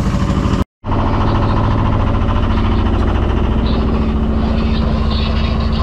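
Sailboat's inboard diesel engine running steadily under way while motoring. The sound breaks off for a moment just under a second in, then the same steady engine drone resumes.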